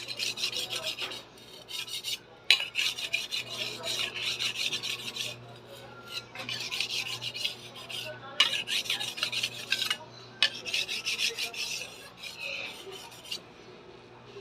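Kitchen knife being sharpened: the steel blade is scraped over and over against a sharpener in quick, rhythmic strokes. The strokes come in several runs of one to three seconds with short pauses between.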